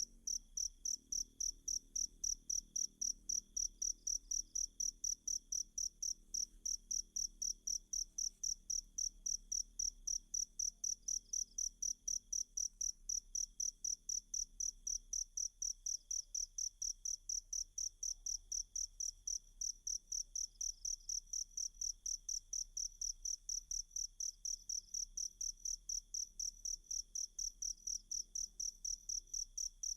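Cricket chirping in a steady, even rhythm of about three short, high-pitched chirps a second.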